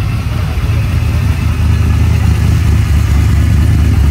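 1957 Chevrolet's engine running with a deep, steady exhaust rumble as the car drives slowly past, growing slightly louder as it nears.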